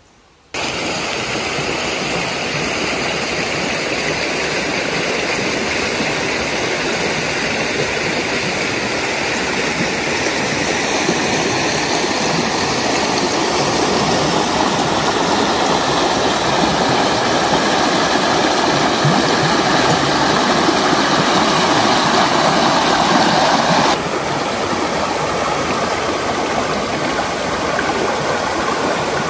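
A woodland stream rushing over rocks in small cascades: a loud, steady rush of water that starts abruptly about half a second in and changes tone slightly near the end.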